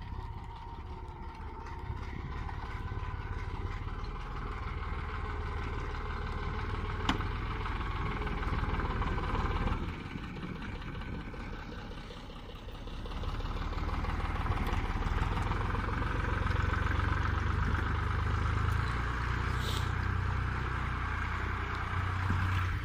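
Steyr 8050 S16 tractor's diesel engine running steadily as the tractor works through deep snow; the engine sound drops back briefly around the middle, then rises and holds louder. A single sharp click about seven seconds in.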